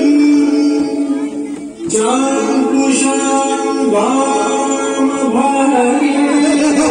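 A song: a singer holding long, melodic notes over instrumental backing, with new phrases beginning about two and four seconds in.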